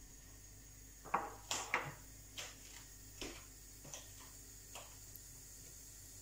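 Mustard, cumin, fenugreek and ajwain seeds popping in hot oil in a pan as a spice tempering: scattered sharp pops, a few close together near the start, then single pops about every second.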